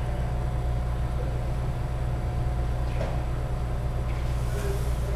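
Steady low hum of the hall's background machinery, with a faint thin tone above it. A single short knock comes about three seconds in, and a brief hiss near the end.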